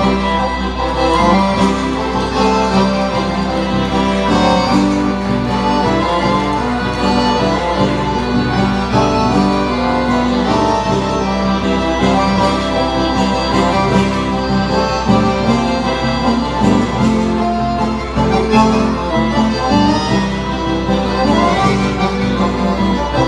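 Piano accordion and acoustic guitar playing an instrumental passage of a gaúcho nativist song, the accordion carrying the melody over strummed guitar.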